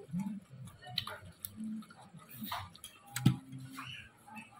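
Close mouth sounds of someone eating rice and fried catfish with his hands: irregular small clicks and lip smacks from chewing. A single sharp click a little over three seconds in is the loudest sound.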